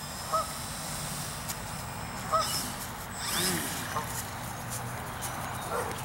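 Electric motor and propeller of a Flyzone Select Scale DHC-2 Beaver RC floatplane whining steadily at low throttle as the model taxis on the water, the high whine fading out about halfway through. Two short honks sound, one near the start and one about two seconds in.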